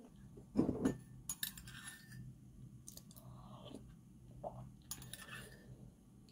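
Small household objects being handled: a string of short knocks, clinks and scrapes, the loudest a dull knock under a second in.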